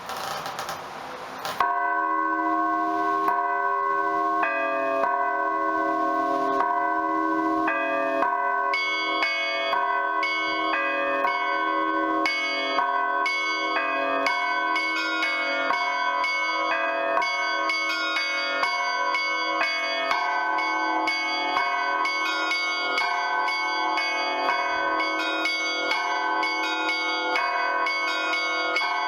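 Orthodox church bell ringing (zvon) on a set of old, partly damaged bells cast by the Lavrov, Olovyanishnikov and Shuvalov foundries. It starts about a second and a half in, with the middle chiming bells striking a repeating pattern. About eight seconds later the small treble bells join with rapid, dense strikes over it.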